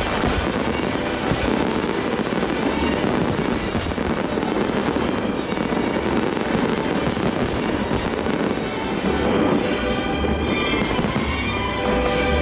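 Aerial fireworks display going off in a dense, continuous barrage of crackles and pops, with show music playing underneath.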